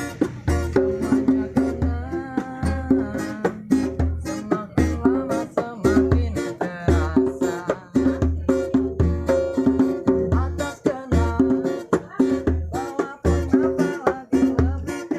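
Music with a plucked string instrument carrying the melody over a steady, regular low beat.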